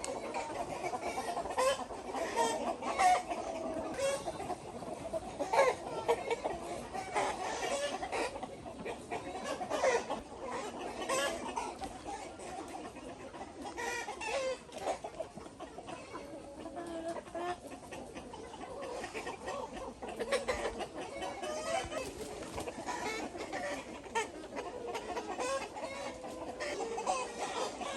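A flock of chickens clucking and calling over one another, with many short overlapping calls and occasional sharper squawks.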